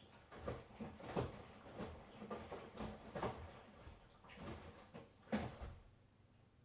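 Miele washing machine drum turning, the laundry inside tumbling with a run of irregular soft thumps that start about half a second in and stop near the end.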